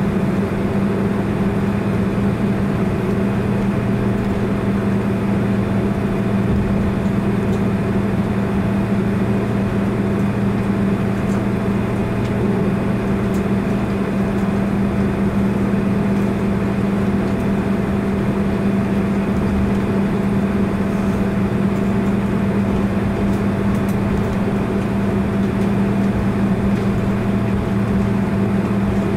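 Steady cabin drone inside a Boeing 767-300 taxiing after landing, with an even low hum that does not change.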